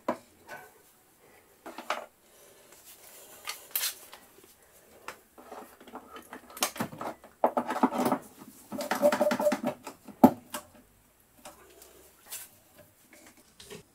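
IRWIN Quick-Grip bar clamps being fitted and tightened down on a drill stand: scattered clicks and knocks of plastic and metal, with two longer runs of rapid clicking about two thirds of the way in as the clamps are squeezed up.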